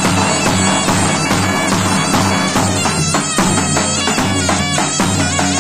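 Zurna playing a melody over the beat of a davul, a large double-headed bass drum struck with a heavy mallet and a thin stick: Turkish davul-zurna folk music.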